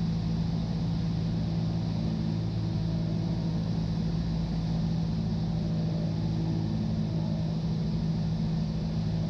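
Cessna 172's piston engine and propeller droning steadily on final approach, the pitch and level holding even with no change of power.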